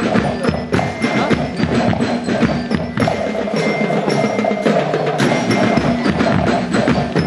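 Marching band playing: a busy drum beat with short, high ringing notes over it.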